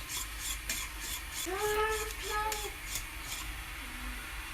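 A utensil stirring and scraping a thick, thickening mixture in a saucepan, in rhythmic strokes about three a second. A short high voice sounds in the middle.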